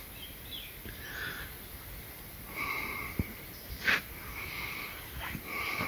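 Wild birds calling across a lake: several hoarse, drawn-out calls of about half a second to a second each, with a few short sharp notes. The loudest note comes about four seconds in.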